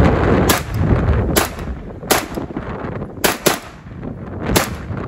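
A retro M16A1-style AR-15 rifle in 5.56/.223 fired as rapid single shots, about seven sharp cracks at uneven intervals, some in quick pairs. Wind buffets the microphone during the first second.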